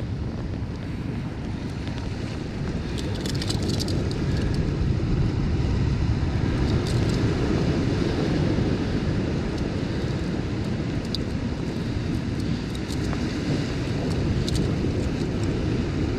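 Wind buffeting the microphone as a steady low rumble, with a few light metallic clicks from a steel unhooking tool being worked against the hook in a small fish's mouth.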